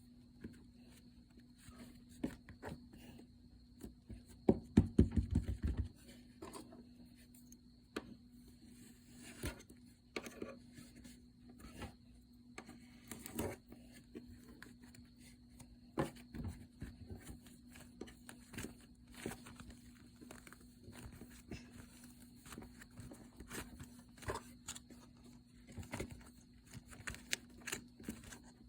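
Slime being handled and squished: scattered small clicks, pops and crackles, with a cluster of louder low thumps about five seconds in, over a faint steady hum.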